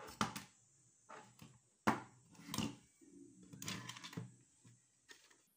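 A switching power supply circuit board handled and turned over on a wooden bench: a series of knocks and scraping taps, the loudest about two seconds in.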